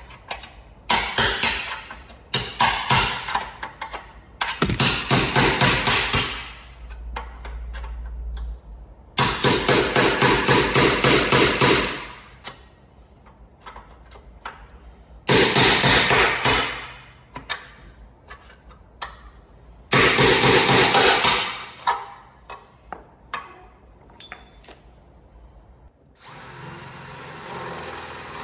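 Cordless drill drilling out spot welds in a car's steel front panel, in repeated bursts of one to three seconds with small knocks between them. A steady, quieter hum takes over near the end.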